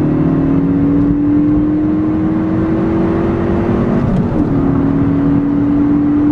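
Ford Focus ST's turbocharged 2.0-litre four-cylinder engine, heard from inside the cabin, revving hard under acceleration with its pitch climbing steadily. About four seconds in the note breaks off briefly and comes back slightly lower as he shifts up, then climbs again.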